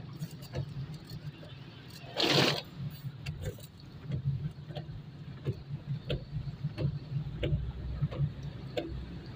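Inside a car driving through heavy rain on a wet road: a steady low hum of engine and tyres, a scattering of light ticks, and a louder whoosh about two seconds in.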